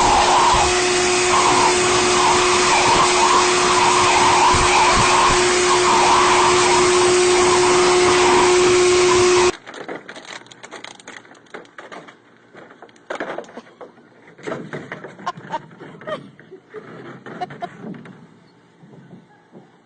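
Blow dryer running steadily with a hum and a wavering higher sound over it. It cuts off abruptly about halfway through, leaving only faint scattered clicks and rustles.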